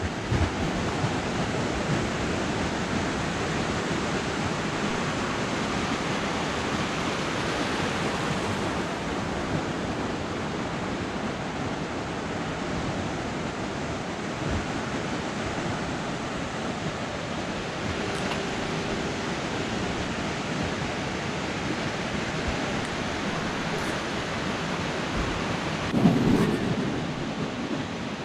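Ocean surf washing up a sandy beach: a steady rushing noise, briefly louder near the end.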